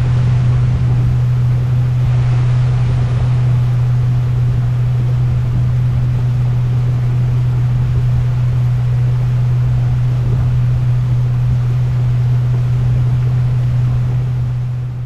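A boat's motor running at a steady cruising speed, a constant low hum under a rush of wind and water noise, fading out near the end.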